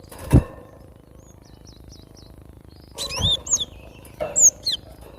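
Cinereous tit (gelatik batu) calling: sharp, high, curving chirps in a short burst about three seconds in and again near four and a half seconds, with a faint run of quick high notes before them. A low thump about half a second in, and another at about three seconds.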